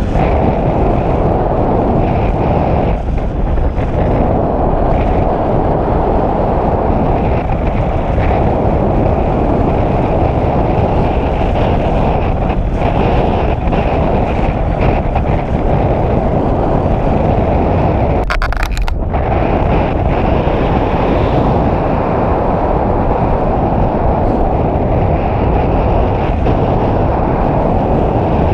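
Steady, loud wind rushing over the microphone of a camera carried in flight under a paraglider.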